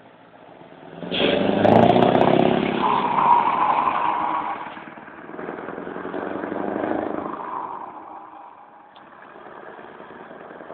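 Scania 164 580's V8 diesel engine accelerating hard, swelling about a second in and pulling loudly for a few seconds. It eases off near five seconds, pulls again more softly around six to seven seconds, then fades as the truck moves away.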